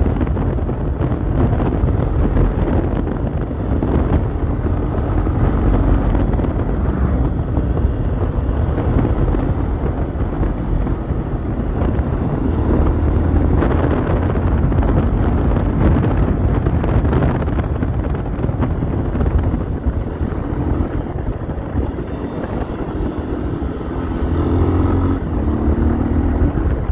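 Honda XRE 300's single-cylinder engine with its stock exhaust, running steadily while riding, with wind buffeting the microphone. Near the end the engine pitch briefly rises and falls.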